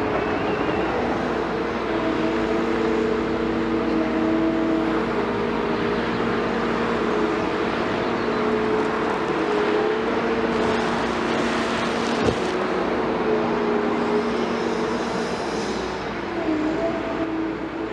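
Excavator's diesel engine running steadily, with several held tones that shift a little in pitch and a single sharp knock about twelve seconds in.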